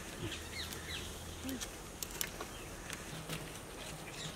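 A few short falling bird chirps over a quiet open-air background, with scattered light clicks and crinkles of butter paper being handled in a large cake tin.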